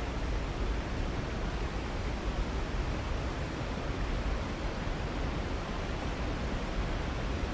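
Waterfall, a steady, unbroken rush of falling water, heaviest in the low end.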